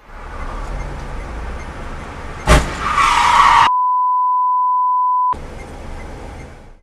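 Road and engine noise inside a moving car, broken about two and a half seconds in by one sudden loud bang of a collision. Then a steady 1 kHz censor bleep blots out the audio for about a second and a half before the road noise returns.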